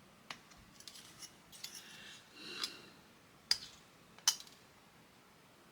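Plastic model-kit parts being cut from the sprue and trimmed: three sharp snips of the cutters, with light scraping and handling of the plastic between them.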